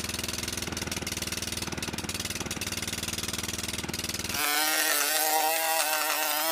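Walk-behind lawn mower's small single-cylinder engine running steadily. About four and a half seconds in, the sound changes to a louder, higher engine note that wavers slightly.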